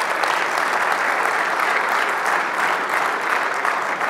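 Audience applauding steadily: dense, even clapping from a large room full of people.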